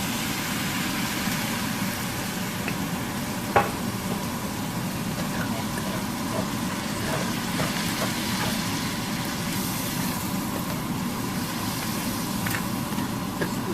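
Ground beef sizzling in a hot pan while being stirred, just after Chinese wine has been poured in to deglaze it and lift the browned bits from the bottom. A single sharp knock about three and a half seconds in, with a few light clicks of the utensil.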